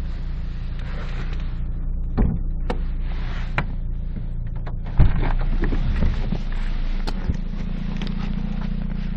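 Lada Priora's petrol engine running warm at about 90 degrees, a steady hum with sharp knocks over it, which the owner takes for piston knock. About five seconds in it gets suddenly louder.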